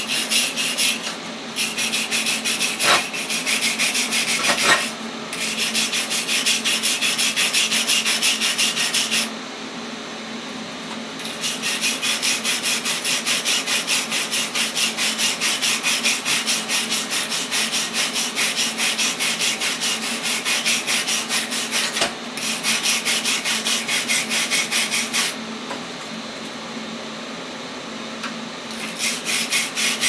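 Hand wire brush scrubbing a TIG-welded aluminum plate in rapid back-and-forth strokes, brushing the white residue off the welds. The scrubbing stops for about two seconds around nine seconds in, and again for a few seconds near the end.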